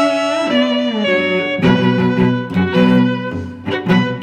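Background music on bowed string instruments: held notes that slide from one pitch to the next.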